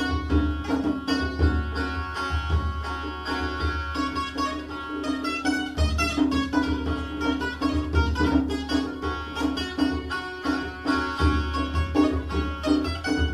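Instrumental background music: a fast run of plucked string notes over a pulsing bass, with no singing.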